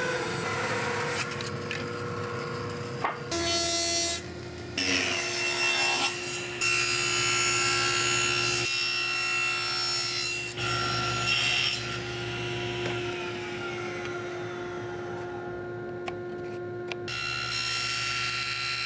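Power saws cutting cherry in a string of short edited clips: a Laguna bandsaw resawing a board into thin strips, then a table saw trimming the strips to size with small test cuts. Each clip breaks off suddenly.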